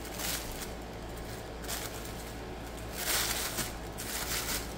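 Handling noise from unpacking a 1/50-scale model crane: soft rustling of wrapping, with a few brief swishes, the loudest about three seconds in.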